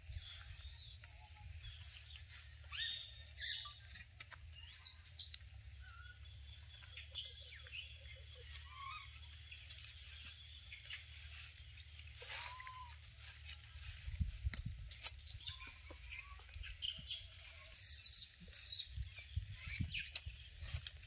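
Outdoor ambience with scattered short, faint chirps and squeaks and a few light clicks, over a steady low rumble.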